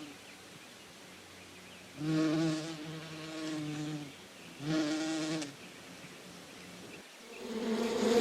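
Bee buzzing in flight, its hum swelling and fading as it passes close and moves off. There are loud passes about two and about four and a half seconds in, and the buzz rises again near the end.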